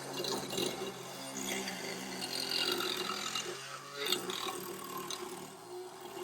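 Background music with held low notes that change every second or two.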